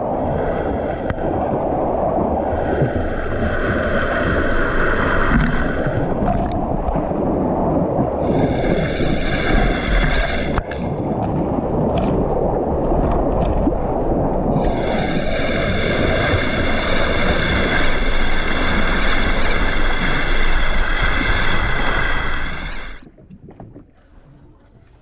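Water rushing and splashing along the bow of a boat under way, mixed with wind on the microphone, as a steady roar with a ringing hiss that swells and fades a few times. It cuts off suddenly near the end, leaving a much quieter background.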